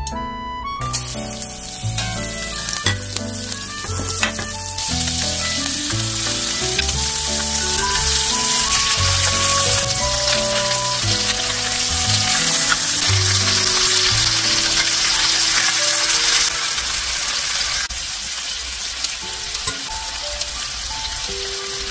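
Skin-on chicken thighs sizzling as they fry in hot oil in a skillet. The hiss starts about a second in and is loudest through the middle, with light background music throughout.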